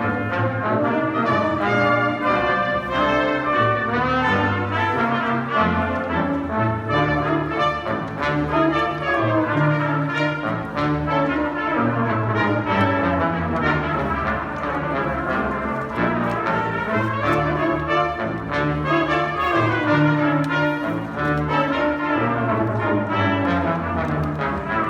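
Middle school concert band playing a piece, with brass to the fore: steady sustained chords over a bass line that moves in held steps.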